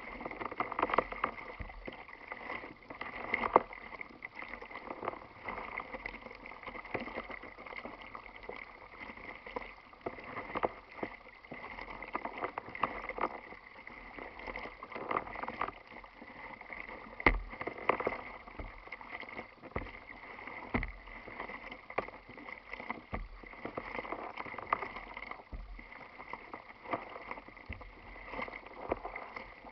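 Choppy water slapping and splashing against the plastic hull of a kayak under way, with irregular sharp slaps every second or two. A faint steady high tone runs underneath.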